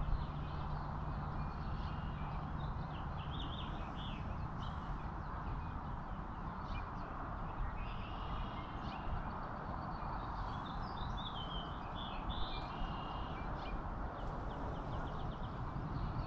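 Wild birds chirping and calling in short bursts of song, several times over a steady background hiss of breeze.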